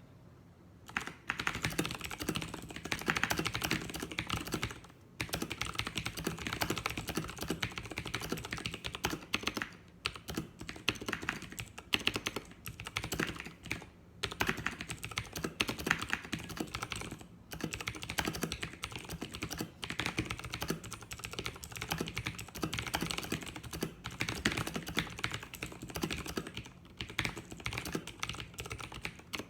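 Razer BlackWidow Ultimate 2014 mechanical keyboard being typed on fast and continuously, a dense clatter of key clicks. The typing starts about a second in and pauses briefly a few times.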